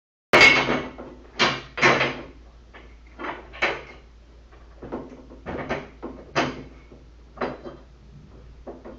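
Irregular clanks and rattles of hand tools and metal hardware being handled while working on a treadmill's frame bolt. About a dozen separate knocks, the first one the loudest.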